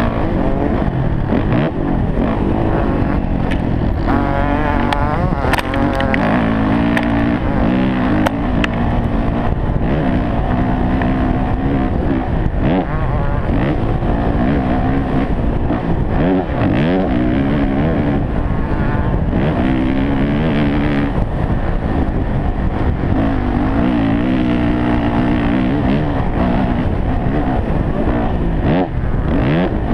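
Motocross dirt bike engine revving hard and backing off again and again as the rider works through the gears, heard from a helmet camera with wind noise on the microphone.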